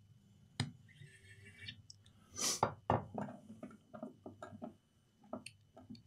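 Light knocks, taps and clicks of a laptop battery and its connector cable being handled and fitted into an open laptop chassis, with one louder knock about two and a half seconds in and a run of light taps after it.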